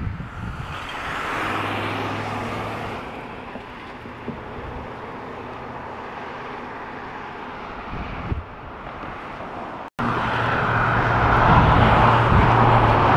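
Motor vehicle noise: a steady rush with a low engine hum that swells twice. The sound drops out for an instant about ten seconds in and comes back louder.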